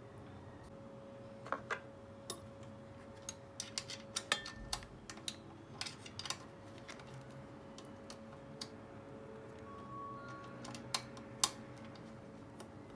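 Irregular light metallic clicks and taps of hands fitting the engine-mount bolts on a gas scooter. The clicks bunch together about four seconds in, and there are two sharper ones near the end.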